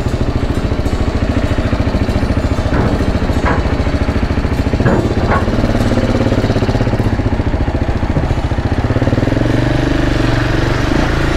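KTM 690 Enduro's single-cylinder four-stroke engine running at low revs as the motorcycle rides slowly off a ferry ramp, with a few short knocks in the middle.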